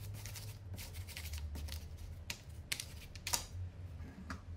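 Thin wooden lattice strips clicking and clattering against one another as a stack of them is slid and fanned out by hand, in irregular light ticks over a low steady hum.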